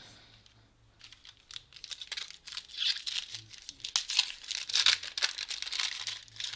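Trading-card pack wrapper being torn open and crinkled by hand, an irregular crackling that starts about a second in and grows louder toward the end.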